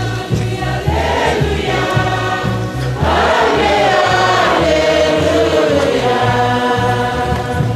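Choir singing a church hymn over a steady low rhythmic accompaniment; the singing grows louder about three seconds in.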